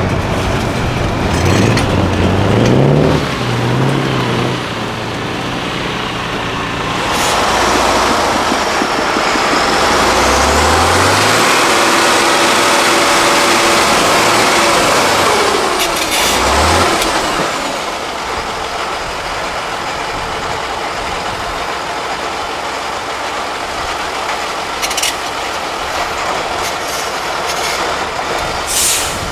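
Heavy off-road trial truck's diesel engine revving up several times, working hard and loud for about ten seconds around the middle, then settling to a steadier, quieter run.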